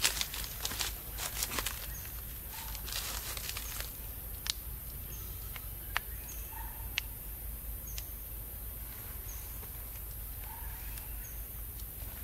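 Outdoor forest ambience: a steady high hiss with short faint chirps every second or two, and scattered sharp clicks and rustles, busiest in the first couple of seconds.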